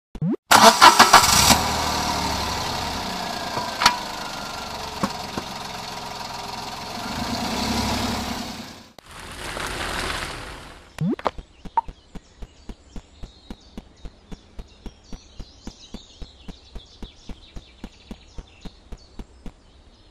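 A car engine starts with a loud burst and keeps running, swelling near the end before cutting off. A short rushing noise follows. Then comes a faint, even ticking of about three ticks a second.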